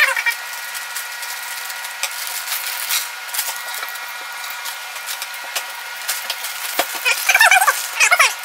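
Plastic Lego pieces rattling and clicking as they are handled and sorted, with a few short high squeaky sounds near the end.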